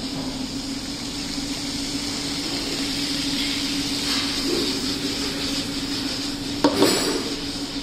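Penne in red sauce sizzling in a hot frying pan as it is stirred with a silicone spatula, over a steady hum. Near the end a sharp knock as the pan is lifted and tossed.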